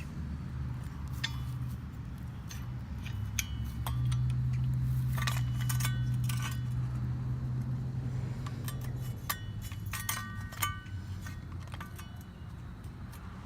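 Screwdriver clinking and tapping against the steel blade and rivets of a machete handle: scattered light metallic clicks, each with a short ring, coming in small clusters about five seconds in and again about ten seconds in. A steady low hum runs underneath and grows louder for a few seconds in the middle.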